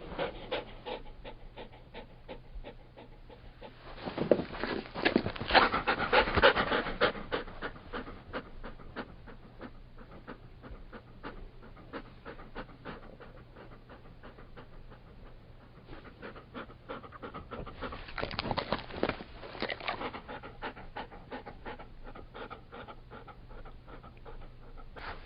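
Labrador Retriever panting rapidly, with louder, heavier stretches about four seconds in and again near two-thirds of the way through.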